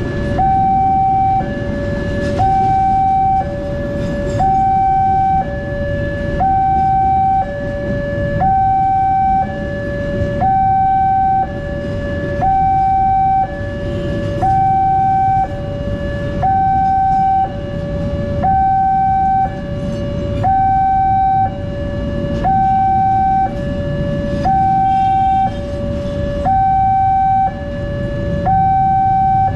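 Railway level crossing's electronic warning alarm, a higher and a lower tone alternating, each held about a second, repeating steadily. A passing train runs underneath it.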